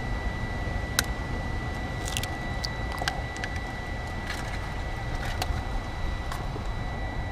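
Wind rumbling on the microphone over a pot of water at a rolling boil on a BioLite Campstove 2. A thin steady high whine runs throughout, with a few light clicks and taps scattered through.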